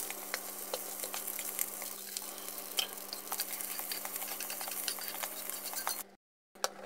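A spatula scraping and tapping against a frying pan as freshly fried rice is scooped out into a glass bowl, with light sizzling from the hot rice and a steady low hum underneath. The sound cuts off suddenly about six seconds in.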